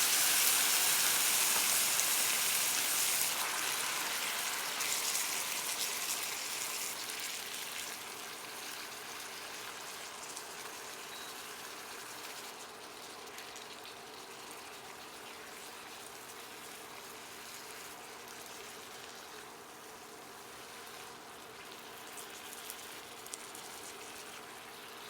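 White wine hitting a hot frying pan: a loud sizzling hiss at first that dies down steadily over several seconds into a quieter, even sizzle as the liquid simmers.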